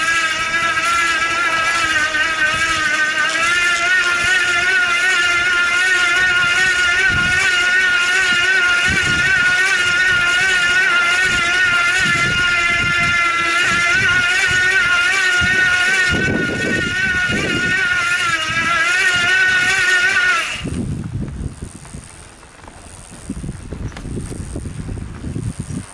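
Cyclone 250 W, 24 V bottom-bracket electric motor whining steadily as it drives the trike through its short chain, its pitch wavering slightly. It cuts off suddenly about twenty seconds in, leaving a low rumble.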